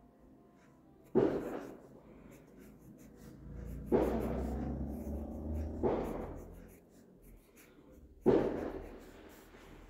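Black marker pen scratching on paper as capital letters are written, in separate strokes: four louder ones, each starting sharply and dying away over about a second.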